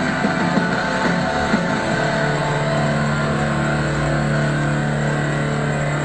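Semi truck's engine running steadily, heard from the dashcam in the cab, with a few light clicks in the first second and a half.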